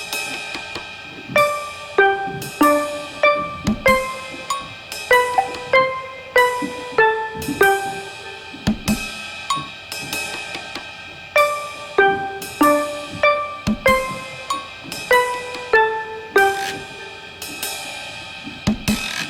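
Background music: a stepping melody over a drum kit with cymbals and hi-hat, keeping a steady beat.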